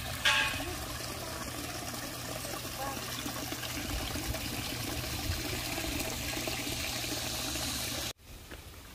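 Water trickling and splashing steadily down a tiered stone garden fountain, spilling from basin to basin into a small pond. It stops abruptly about eight seconds in.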